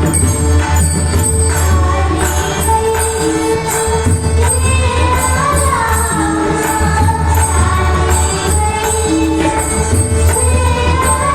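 Marathi Varkari bhajan: a woman singing a devotional song over pakhawaj and tabla drumming, with a steady rhythm of metallic percussion strikes.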